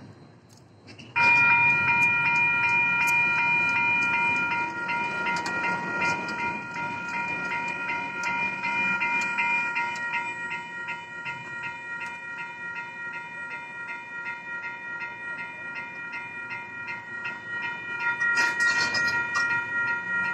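Railroad crossing warning bell starts about a second in and keeps ringing in fast, evenly repeating electronic dings while the crossing gate arms lower. It is loudest at first and a little softer later, with a short rush of noise near the end.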